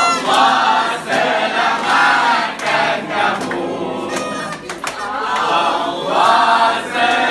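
A crowd of adults and children singing a birthday song together, clapping along.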